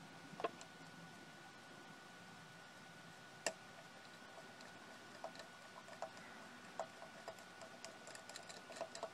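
Faint small clicks and taps of fingers handling wiring and connectors inside an open laser projector: one sharper click about three and a half seconds in, then a run of light ticks near the end. A faint steady high tone runs underneath.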